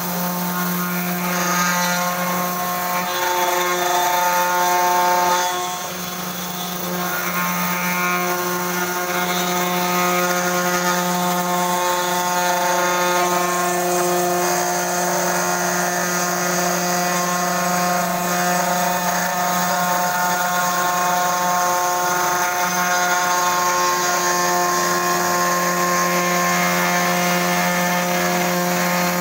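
A 500 W CNC router spindle with a 3 mm end mill milling into a coconut half shell: a steady whine with cutting noise over it, briefly quieter about six seconds in.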